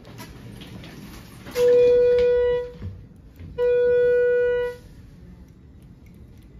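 Two loud, steady electronic beeps from the Schindler elevator car's signal, each a little over a second long with a gap of about a second between them.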